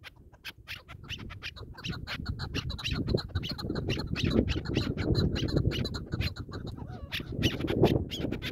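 Chukar partridges calling: a fast run of short clucking "chuk" notes, several a second, that grows louder about two seconds in and keeps going.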